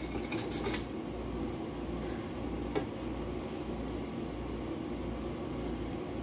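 Steady low hum of a running appliance motor, with one light click a little before halfway.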